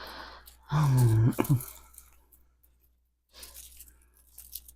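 Packaging rustling and crackling as jewelry is unwrapped and handled, with a short wordless vocal sound, like an admiring 'ooh', about a second in.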